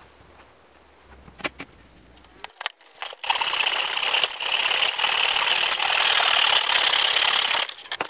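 Hand saw cutting through a thin wooden strip in a plastic miter box: a fast, steady rasp of sawing strokes starts about three seconds in and stops abruptly near the end, after a few light knocks as the wood is set in place.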